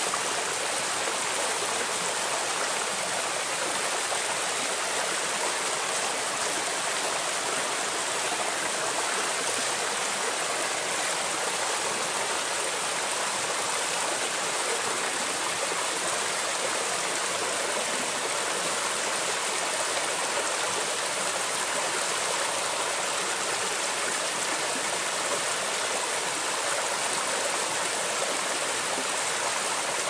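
Valley stream running steadily: an even, unbroken rush of flowing water.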